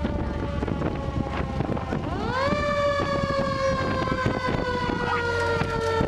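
Fire truck siren: a fading wail slowly falling, then about two seconds in a new wail rises sharply and slowly falls again. Wind on the microphone and the rumble of the moving truck run under it.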